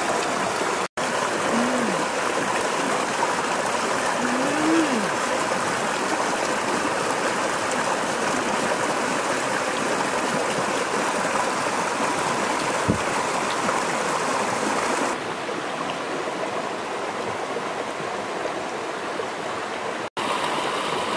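Shallow rocky stream rushing and babbling steadily. Twice in the first five seconds a person gives a short rising-and-falling hum, and the sound cuts out for an instant about a second in and again near the end.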